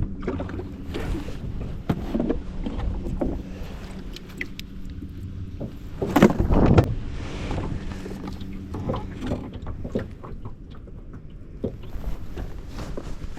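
Small boat on the water: the steady low hum of an electric trolling motor under scattered small knocks and water noise, with a louder burst of noise about six seconds in.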